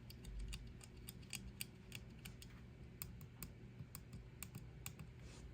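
Faint, quick plastic clicks at an irregular pace, about three or four a second, like small switches or keys being pressed by hand.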